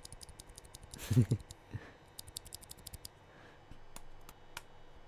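Quick runs of small, sharp clicks from a split mechanical keyboard's parts being worked by hand, several clicks a second, broken by short pauses. A brief low voiced sound comes about a second in.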